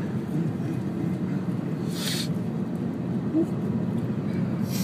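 Steady low rumble inside a car cabin, with a brief hiss about two seconds in.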